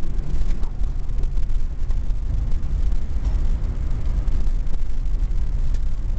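A loud, continuous low rumble with an uneven, fluttering level, and a few faint clicks scattered through it.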